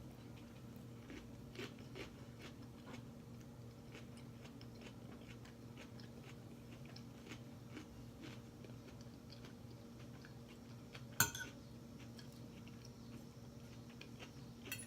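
Close-up chewing and crunching of Caesar salad with croutons: faint, irregular crunches throughout, with one sharper click about eleven seconds in. A steady low hum runs underneath.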